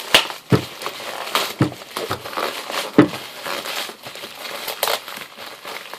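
A shipping package being torn open by hand: irregular crinkling, crackling and tearing of packaging, with several sharper cracks.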